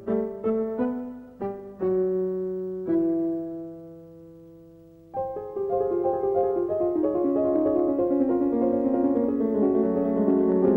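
Solo piano playing: a series of struck chords, then one chord left to ring and fade away from about three seconds in, before a busier passage of quick notes starts about five seconds in.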